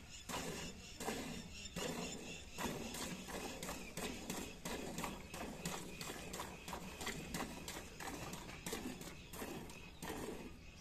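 Buffalo being milked by hand: short streams of milk squirting into a pail, one after another at about three squirts a second.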